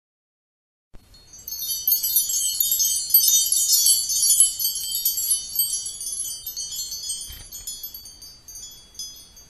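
High-pitched chimes tinkling in a dense, shimmering cascade that starts about a second in, is strongest over the next few seconds, then slowly fades.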